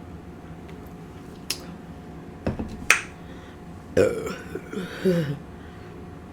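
A woman's loud, long burp about four seconds in, lasting over a second with its pitch sliding down. A few sharp clicks come before it.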